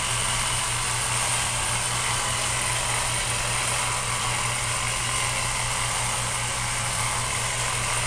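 Makita jigsaw converted into a massager with a rubber tip, its motor running steadily with a low buzz as the tip is pressed along the muscles of a person's back.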